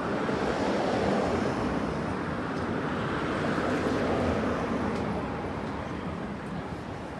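City street traffic: a vehicle passing close by with tyre and engine noise, swelling in the first second or so and fading over the last few seconds.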